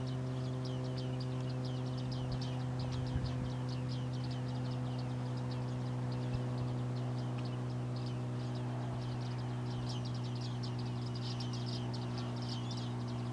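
A flock of bearded reedlings calling among the reeds: a constant stream of short, high, metallic ping calls from many birds at once. A steady low hum runs underneath.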